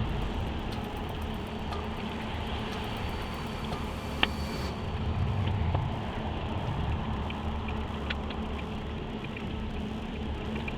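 Steady low rumble of a motor vehicle, with a single sharp click about four seconds in.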